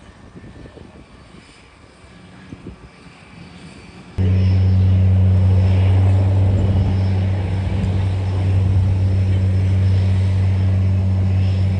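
Floatplane's propeller engine at takeoff power as it runs across the water: a loud, steady low drone that starts abruptly about four seconds in, after faint background sound.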